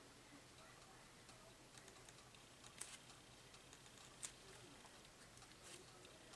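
Near silence: room tone with scattered faint ticks and three sharper small clicks, each heard once, near the middle and toward the end.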